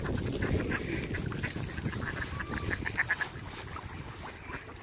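Flock of mallard ducks quacking, with a cluster of short calls about two to three seconds in.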